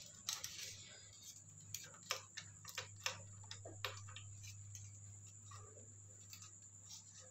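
Scattered light metallic clicks and scrapes, irregular and strongest in the first four seconds, as a small screwdriver works the cam chain inside a Yamaha Mio Sporty's aluminium cylinder head. A steady low hum runs underneath.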